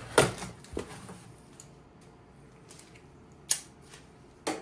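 Unpacking a cardboard box by hand: a few sharp clicks and knocks, the loudest near the start and another about three and a half seconds in.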